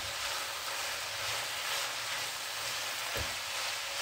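Shredded chicken and vegetable filling sizzling in a frying pan while being stirred with a wooden spatula, with a single knock of the spatula against the pan about three seconds in.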